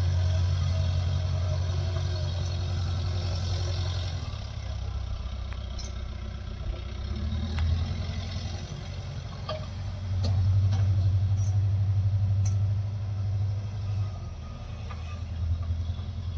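Heavy diesel engine running steadily, growing louder for a few seconds about ten seconds in, with a few light clanks.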